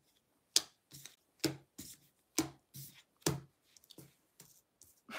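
A deck of oracle cards shuffled by hand: a crisp slap of cards about once a second, four times, with softer taps between, then a few faint ticks near the end.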